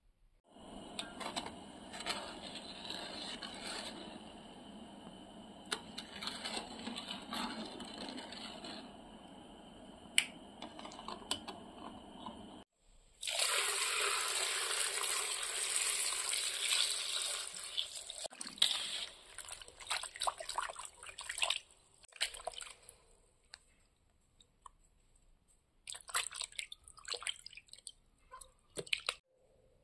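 Water poured steadily into a bowl of granulated sugar for about twelve seconds. After a sudden cut, a louder stream of tap water splashes into a metal basin of whole figs. Scattered splashes and clicks follow as a hand moves the figs about in the water.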